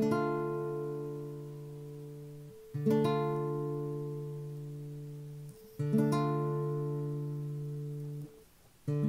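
Nylon-string classical guitar sounding a D minor chord with an added interval note. The chord is struck about every three seconds, and each stroke is left to ring and fade.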